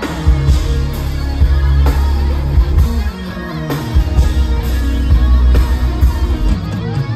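Live rock band playing loud music with heavy bass, drum hits and electric guitar; the bass line slides down about three seconds in.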